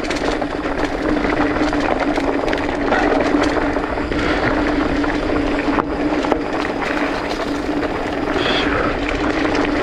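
Polygon Siskiu T8 full-suspension mountain bike descending fast on dirt singletrack: knobby Maxxis Dissector tires rolling over dirt and stones, with a steady hum throughout and scattered clicks and knocks of the bike rattling over the rough ground.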